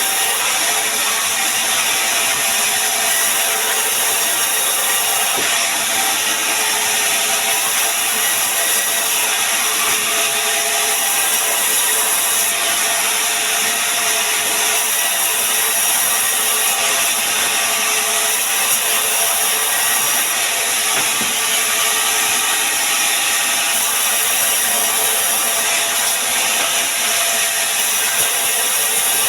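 Sawmill saw running steadily through pine wood, a continuous loud cutting noise.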